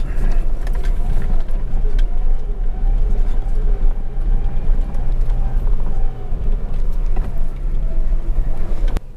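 Truck engine running as the truck crawls along a rough creek bed: a steady low rumble that cuts off abruptly near the end.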